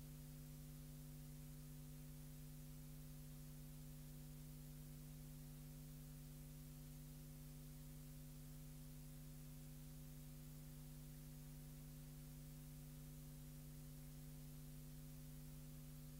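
Near silence: a faint, steady electrical hum with a light hiss.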